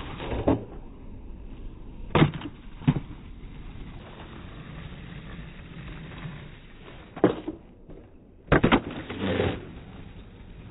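Skateboard wheels rolling on rough asphalt, broken by sharp wooden clacks of the tail popping and the board landing: one about half a second in, a pair about two seconds in, one about seven seconds in, and a cluster near the end.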